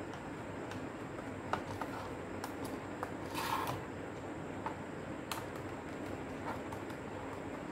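Plastic casing of a portable CD player being pried open with a thin tool: scattered small clicks and ticks, with a brief scrape about halfway through, over a steady background hiss.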